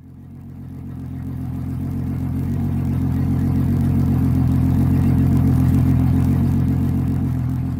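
A deep engine rumble at a steady pitch, swelling up over the first few seconds and fading away near the end.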